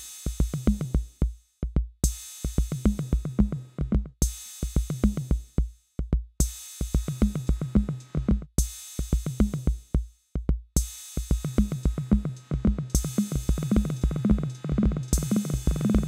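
Roland TR-06 Drumatix drum machine playing a looping pattern of rapid kick drum hits and pitched drum tones under a cymbal wash that opens each bar. The pattern repeats about every two seconds, with brief drop-outs between repeats.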